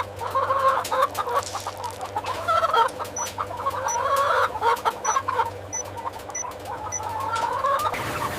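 A flock of chickens clucking, many birds calling over one another, with a steady low hum underneath.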